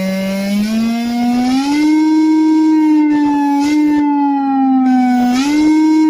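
Electronic big-bike engine sound effect played through a speaker on an e-bike: a buzzing, engine-like tone that climbs in pitch over the first two seconds, then holds, sagging slightly and jumping back up twice.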